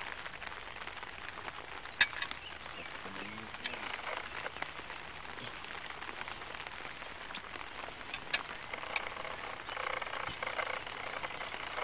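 Quiet outdoor ambience broken by a few scattered sharp clicks and taps, the loudest about two seconds in, with brief faint murmurs of voices.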